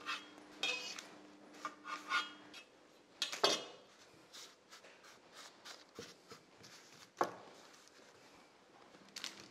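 Soft rubbing, scraping and light taps as star-shaped cracker dough pieces are moved with fingers and a palette knife onto a parchment-lined baking tray, with two slightly louder knocks about three and a half and seven seconds in.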